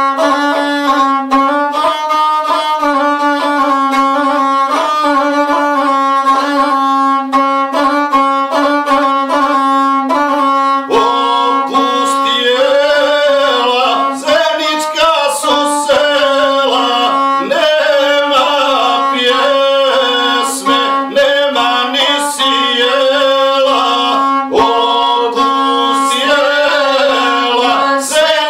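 Gusle, the one-string bowed folk fiddle, playing a repeating melody over a held low note. From about twelve seconds in, a man's voice sings along in a wavering, ornamented line.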